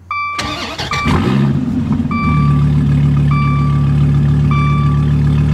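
2014 SRT Viper GTS's 8.4-litre V10 started from inside the cabin: a short crank, the engine catching about a second in with a brief flare of revs, then settling into a steady loud idle. A dashboard warning chime beeps about once a second over it.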